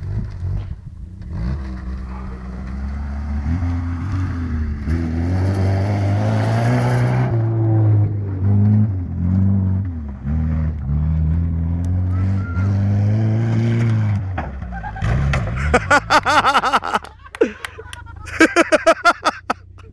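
Suzuki Vitara's engine revving hard under load off-road, its pitch repeatedly rising and falling. Near the end the engine dies away and loud bursts of shouting and laughter from onlookers take over.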